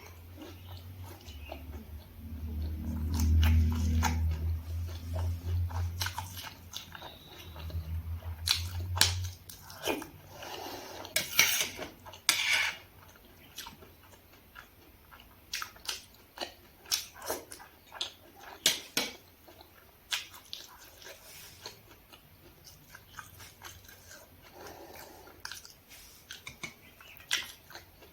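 Close-miked chewing and wet mouth sounds of a person eating, with many small clicks and a couple of louder bites about halfway through. A low rumble runs under the first third.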